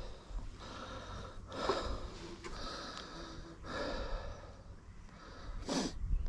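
A person breathing heavily in and out, about a breath a second, with a short sharp breath near the end.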